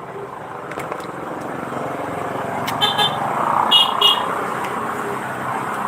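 A motor vehicle running close by, getting louder as it draws near, with three short high horn beeps about three to four seconds in.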